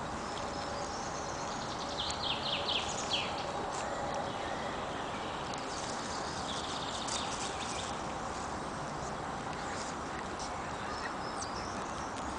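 Steady hiss of a shallow woodland stream. About two seconds in comes a quick run of sharp high chirps, with fainter high notes again around six to seven seconds.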